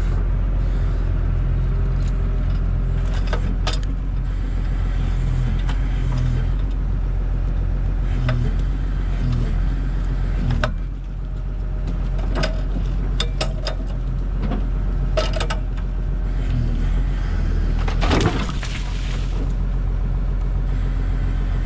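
Heavy equipment engine running steadily under load, a low drone with scattered metallic clanks and rattles.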